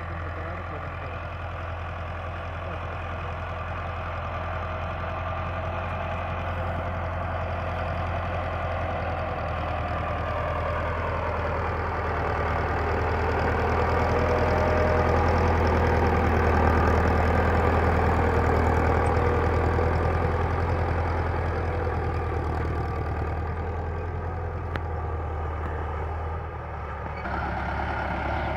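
Dewan Foton Leopard tractor's diesel engine running steadily while it pulls a cultivator through the soil. It grows louder as the tractor comes close, peaks about midway, then fades again.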